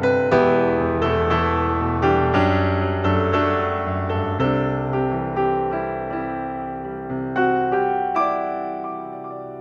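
Slow solo piano background music, single struck notes and chords ringing out one after another, growing softer near the end.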